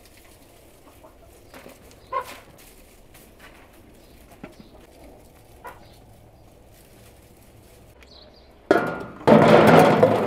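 Ripe tomatoes tumbling out of a metal bucket into an enamel bowl, a sudden loud clatter starting near the end. Before it, faint hens clucking in the background.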